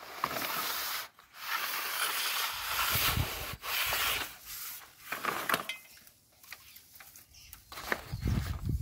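Black HDPE pipe scraping and rubbing as it is handled and slid through the hands, in several long scratchy strokes that fade out partway through. A low rumble comes in near the end.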